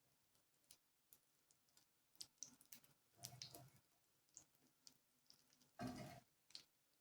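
Near silence broken by scattered faint clicks and taps, with a soft rustle about three seconds in and a louder short knock near the end.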